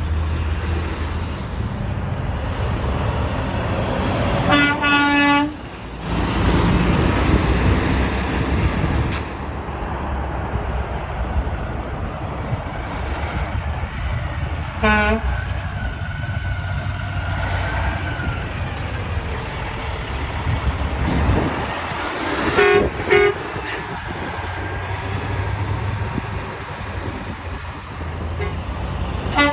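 Passing road traffic with truck horns sounding: one long blast about five seconds in, a short toot around the middle, and two quick blasts later on.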